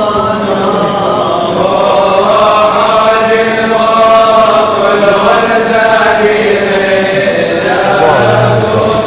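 Liturgical chant of a church service: voices chanting a slow hymn in long held notes.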